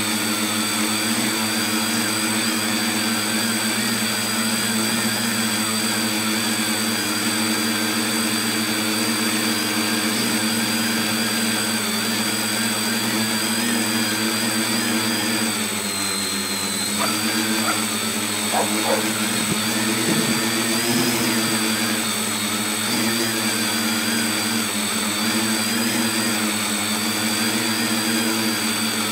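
Tricopter's motors and propellers running with a steady whine, heard close up from a phone mounted on the craft. The pitch sags a little past the middle, then climbs back.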